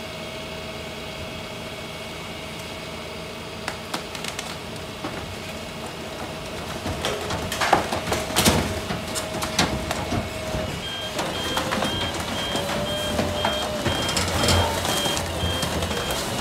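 Truck-mounted dumpster grinder running with a steady whine as its rotating drum is pressed down into cardboard, crushing it with cracking and snapping that grows louder past the middle. From about two-thirds of the way in, a reversing-type alarm beeps at a steady pace.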